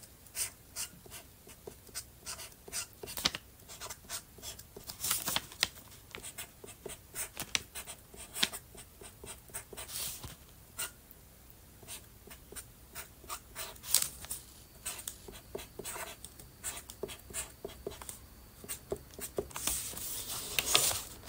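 A pen scratching on paper in many short, quick strokes: drawing or writing by hand.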